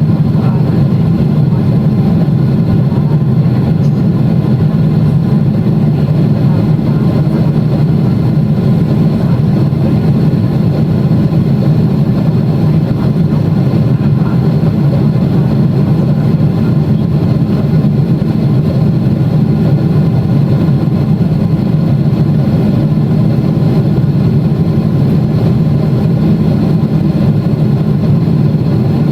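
Steady low drone inside the cabin of a Boeing 777-300ER in flight: the GE90-115B engines and airflow, running at a constant setting with no change in pitch.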